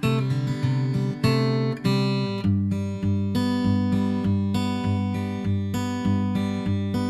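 Background music: a strummed acoustic guitar playing chords, dropping to lower bass notes about two and a half seconds in.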